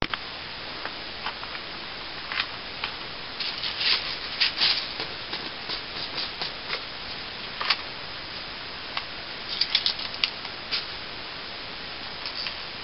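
Scattered clicks and rubbing of an HFC HA-118 airsoft pistol being handled, over a steady hiss, with clusters of clicks about four seconds in and again near ten seconds, and one sharp click in between.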